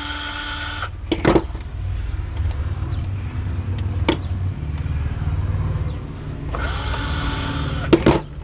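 Power drill-driver backing screws out of a TV antenna: the motor whines at a steady pitch until about a second in, and again near the end after spinning up, with a low rumble and a few sharp clicks in between.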